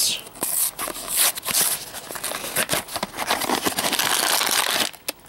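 Small cardboard blind box being pried and torn open by hand: a continuous run of rough crackling and scraping from the card flaps, stopping just before the end.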